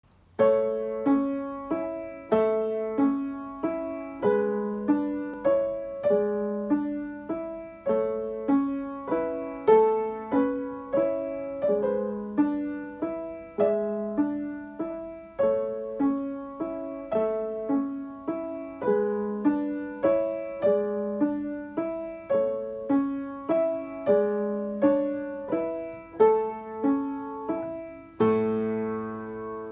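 Upright piano playing a simple, evenly paced piece, one note attack after another in a steady rhythm, ending near the end on a held chord that rings and fades.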